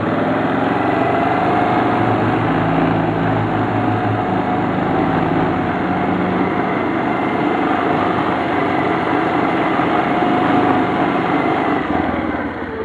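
Kazuma ATV engine running at a steady, moderate throttle while riding over grass, getting quieter near the end as the throttle eases off.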